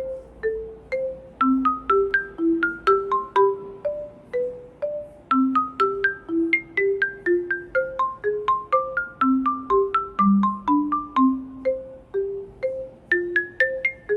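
Background music: a gentle melody of struck mallet-percussion notes, marimba with glockenspiel-like bell tones above, in a steady rhythm.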